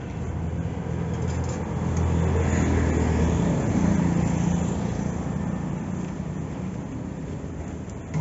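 A motor vehicle's engine passing on the road, a low hum that grows louder over the first few seconds and then slowly fades, over street noise.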